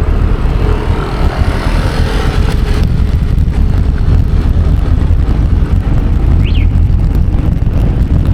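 Wind rumbling on the microphone of a moving bicycle rider, with a motor vehicle passing close by in the first three seconds and fading out sharply.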